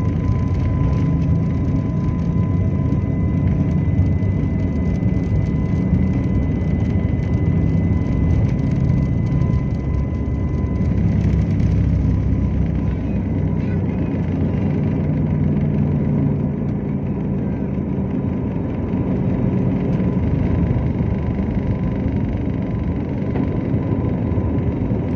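Cabin noise of an Airbus A320neo at takeoff power, accelerating down the runway and lifting off: a steady, loud low rumble with a thin steady whine over it.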